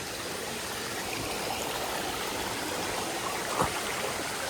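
Steady rush of flowing water from a waterfall and its stream, with one short sharp knock about three-quarters of the way through.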